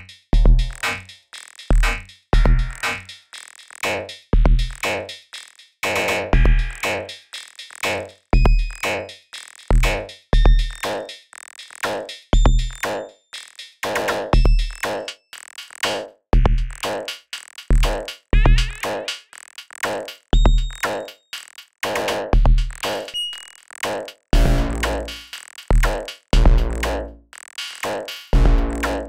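Glitch percussion from the Inear Display Ephemere software synthesizer playing a steady looping beat: deep electronic kick thumps with clicks and short high beeps between them. The low hits grow longer and denser near the end.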